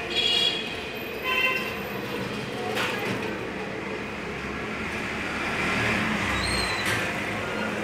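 Steady background rumble with two brief high-pitched squeals in the first couple of seconds and a couple of faint clicks later on.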